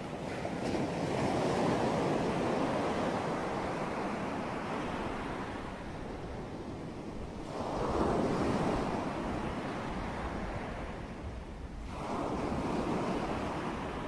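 Ocean surf: waves breaking and washing up a beach in a steady rush. The rush swells three times: just after the start, at about eight seconds and at about twelve seconds.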